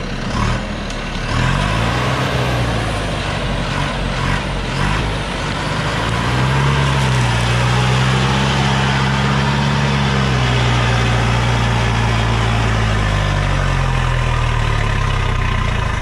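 Diesel engine of a log-loaded Thaco Foland truck running under heavy load as the truck tries to drive out of a sand pocket it is stuck in. The revs rise about six seconds in, hold high for several seconds, then ease down near the end.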